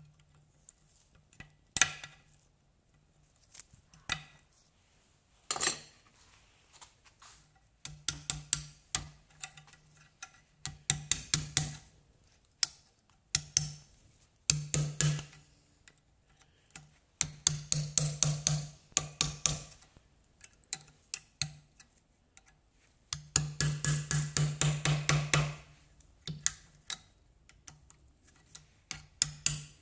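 Quick runs of light hammer taps on metal, about five a second, in bursts with short pauses between them. Each tap carries a short low ring. The taps are knocking an old rear hub bearing out of a Suzuki LT50 quad in pieces.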